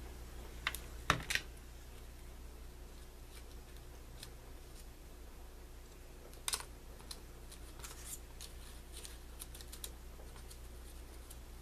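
Light clicks and taps from handling a hot glue gun and pressing paper flower petals together on a cutting mat. The sharpest knocks come about a second in and again midway, followed by softer paper ticks, over a faint low steady hum.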